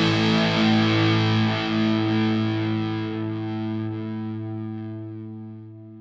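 Closing chord of a rock-style football club anthem, a distorted electric guitar chord left ringing out and fading slowly.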